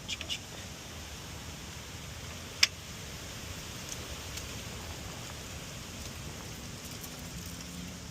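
Hand tools being handled and put away: a few light clicks near the start, then one sharp metallic clink about two and a half seconds in, over a steady hiss.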